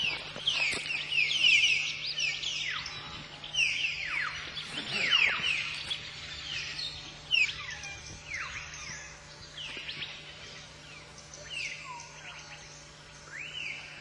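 Common hill myna calling: quick runs of sharp whistles that sweep downward in pitch, coming in clusters every second or so, loudest in the first few seconds and thinning out toward the end.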